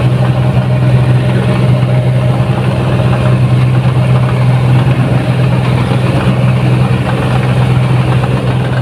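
Diesel engine of a 1550 rice combine harvester running steadily as the machine drives slowly along, a loud, even low drone.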